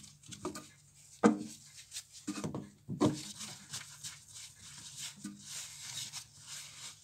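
Bench polishing motor running with a steady low hum while a watch part is pressed against its spinning cloth buffing wheel. The part gives irregular rubbing and scraping, with a sharp knock about a second in, and the rubbing turns into a steady hiss in the second half.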